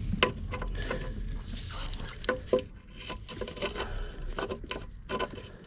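Mole grips (locking pliers) being handled and worked onto a broken stud in the engine bay: irregular metal clicks, taps and scraping.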